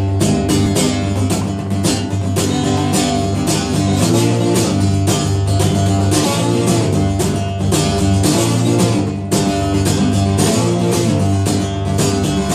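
Solo acoustic guitar strummed in a steady rhythm, playing a song's instrumental intro before the vocals begin.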